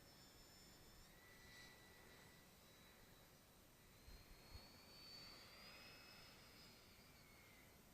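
Faint high whine of a 145 mm electric ducted fan in a big RC jet in flight, heard at a distance. It rises in pitch about halfway through and falls away near the end.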